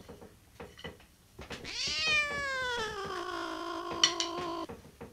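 A few light drumstick taps, then a long cat yowl that rises briefly and slides slowly down in pitch. One sharp stick tap lands near its end.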